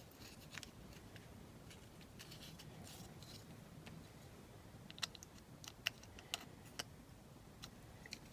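Faint small clicks and taps of hard plastic model-car interior parts being handled and pressed together, with a cluster of sharper clicks in the second half.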